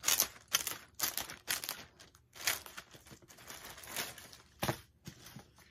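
Packaging being opened by hand, crinkling and rustling in a series of short, uneven bursts.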